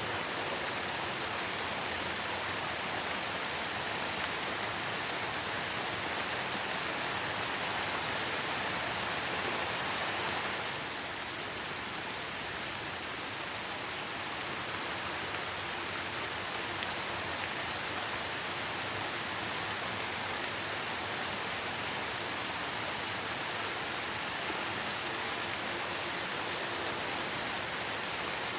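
Steady rain falling, an even hiss of many drops, easing slightly about ten seconds in.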